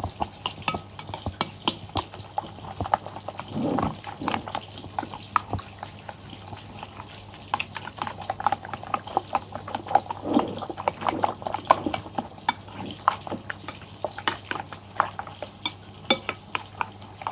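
Raw eggs with chopped vegetables being beaten with a metal spoon in a ceramic plate: rapid, irregular clinks and scrapes of the spoon against the plate.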